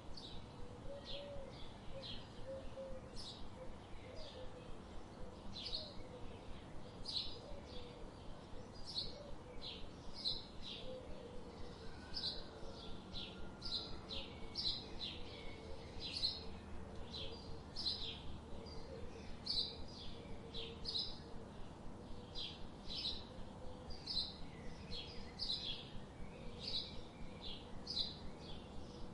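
Songbird chirping: short high chirps repeated about twice a second in an uneven rhythm, over a faint steady background hiss.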